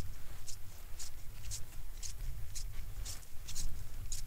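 Fishing line being pulled hand over hand up through an ice-fishing hole: short, scratchy swishes about twice a second, evenly spaced, over a low steady rumble.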